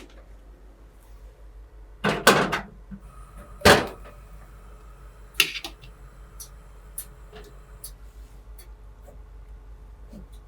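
Kitchen handling noises in a small room: a short clatter of knocks about two seconds in, a sharper knock a second and a half later, another about halfway through, then a few light clicks.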